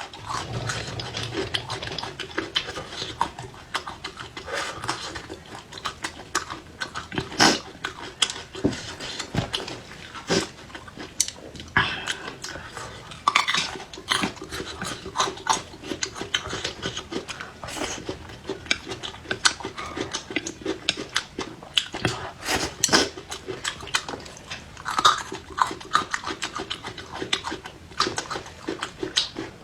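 A person chewing and crunching raw garlic and bird's eye chili peppers, with irregular crisp crunches and mouth noises throughout.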